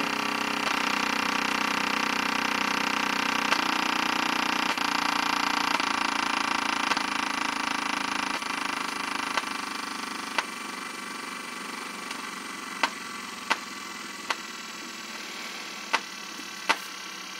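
A pair of old 4GD-35-62 woofers driven with a low test tone, their cones moving hard and giving a steady buzzing hum. It gets quieter about ten seconds in, and several sharp clicks follow near the end.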